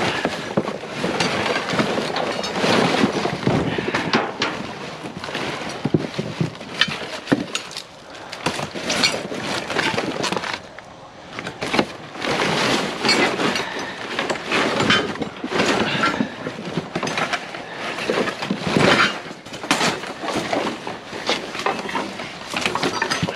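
Rummaging through construction-dumpster debris: continual clattering, rustling and crunching of scrap and wire being pulled and shifted, with many sharp knocks.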